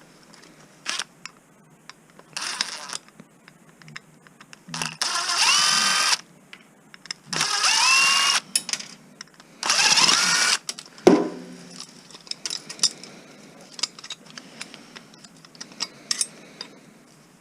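Cordless drill-driver run three times, each run spinning up in pitch and holding briefly before stopping, as screws are driven out of scrap electronics. Small clicks and clatter of loose parts and screws between the runs.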